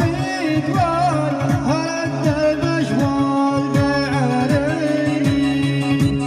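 Middle Eastern hajini-style music: a bending melody over a held low drone, with a steady beat of low drum strokes that drop in pitch.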